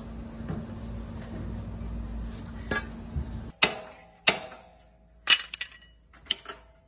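Steel forcible-entry tools, a flat-head axe striking a Halligan bar, driving it into the door jamb of a forcible-entry prop. A steady low rumble with a few light knocks comes first; then, from about halfway, four sharp metallic clangs about a second apart, each ringing briefly.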